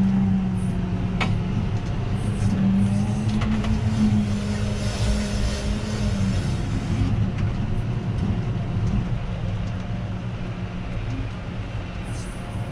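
Tractor engine running steadily under load while pulling a plough, heard from inside the cab. Its hum wavers slightly in pitch and eases off about halfway through.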